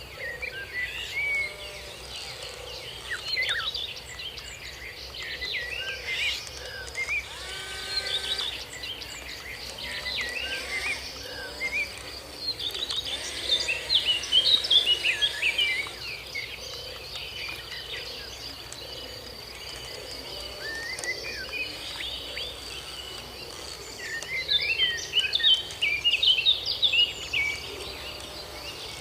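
Birds chirping and calling in quick short notes, loudest in flurries around the middle and near the end, over a steady high-pitched whine.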